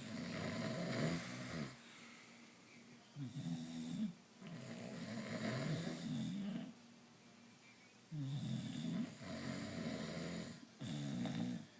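Snoring: about six snores, each one to two seconds long, with short pauses between.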